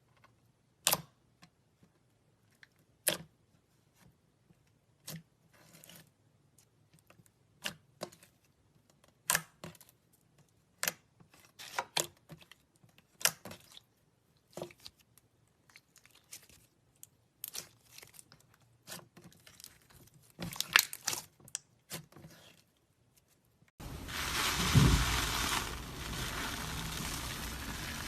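Slime being worked by hand, giving irregular sharp pops and clicks as air pockets burst. Near the end, a steady crackling, crinkling noise takes over.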